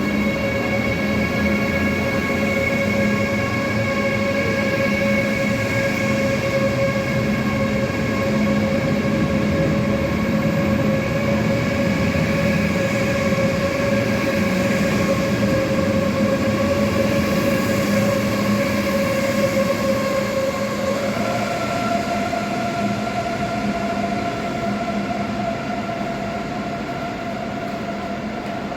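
Electric train running with a steady electric whine over rumble. About 21 s in the whine steps up to a higher pitch, and the sound then slowly fades.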